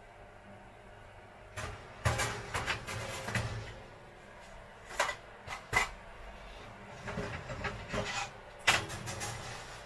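Handling noises on a kitchen worktop: a cluster of knocks and scraping about two seconds in, two sharp clicks around five to six seconds, then more rubbing and a sharp knock near the end.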